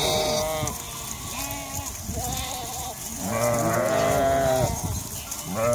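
A flock of sheep bleating, several animals calling and overlapping, with the fullest burst of calls about three to five seconds in.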